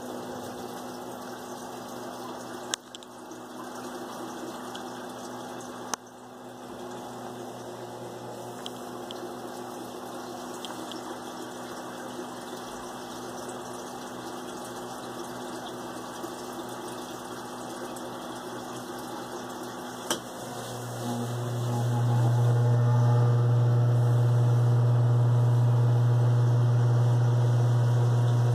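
Saltwater aquarium pump or filter running with a steady low hum and a faint trickle of water, broken by a few sharp taps. About three-quarters of the way through, the low hum rises and stays much louder.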